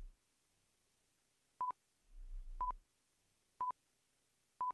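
Quiz countdown-timer beeps: four short, high electronic beeps, one a second, starting about a second and a half in.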